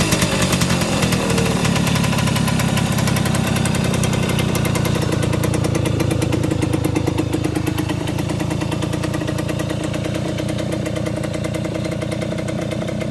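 Simson M531 50 cc single-cylinder two-stroke engine of a moped enduro build running: the revs drop away in the first second or so, then it idles steadily.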